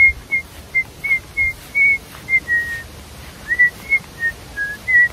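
A person whistling a tune: a quick run of short, clear notes, about three a second, stepping up and down in pitch.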